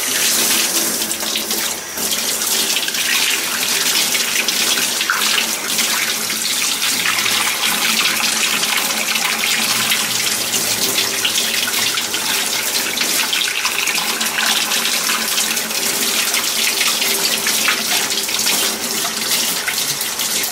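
Kitchen faucet running steadily into a stainless steel sink, the stream splashing over a whole gutted sea bass as hands rinse the leftover blood out of its belly cavity.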